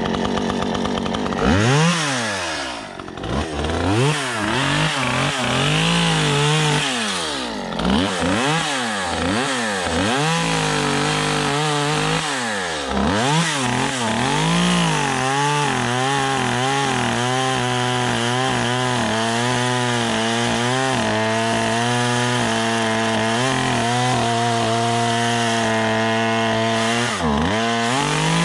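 Redmax top-handle two-stroke chainsaw revved up and down over and over while its carburettor is adjusted with a screwdriver, a saw judged to be running too rich and short of power. In the second half it is held at full throttle cutting into a birch trunk, with a brief drop in speed near the end.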